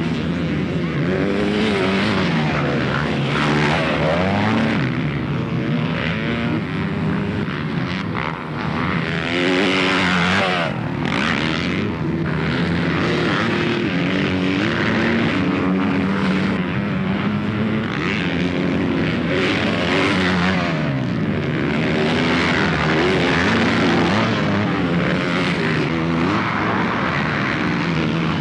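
Motocross dirt bike engines revving hard as several riders race past on the track. The pitch climbs and drops again and again as they accelerate, shift and back off for the jumps and turns.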